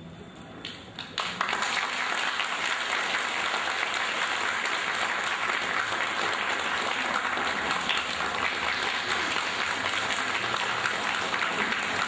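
An audience applauding: a few scattered claps, then from about a second in steady applause.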